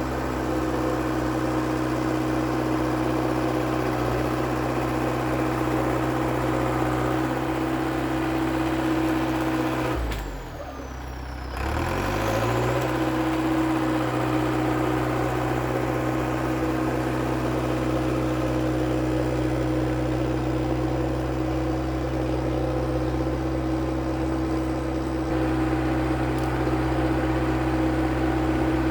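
International Harvester TD8E bulldozer's DT-239 diesel engine running steadily. About ten seconds in, the engine speed drops sharply, then comes back up over a couple of seconds and settles to a steady run again.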